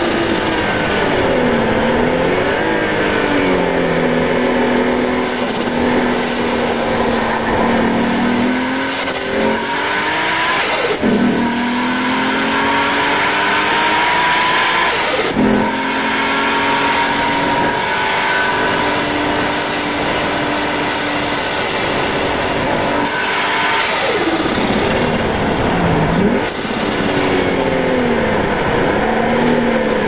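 Nissan R32 Skyline's turbocharged RB20DET straight-six at full throttle, revving up through the gears with its pitch dropping sharply at each shift, twice. Near the end the revs fall away as the car slows for a corner, then climb again as it accelerates out.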